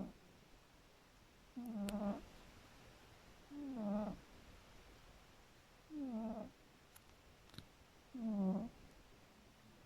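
Sleeping cat snoring: a short pitched snore about every two seconds, four in all, each sliding down in pitch as it starts.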